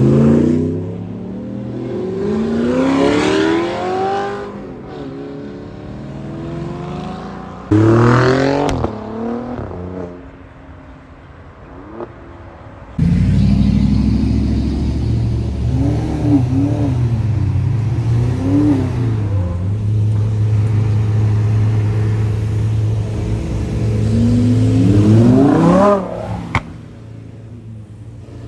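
Car engines revving as cars pull away: engine notes climb in pitch near the start and again about 8 s in. From about 13 s in a deep, steady engine rumble runs with a couple of short blips. Near the end it climbs in a final rev and cuts off suddenly.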